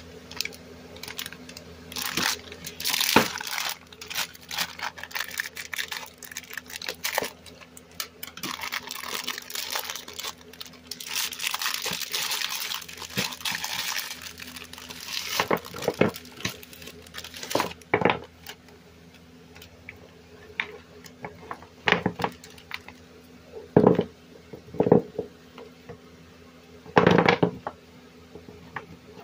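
Plastic wrapping of a bag of freeze pops crinkling and rustling as it is handled and opened. In the second half come several sharp clacks as the frozen plastic tubes knock onto the wooden tabletop and against each other.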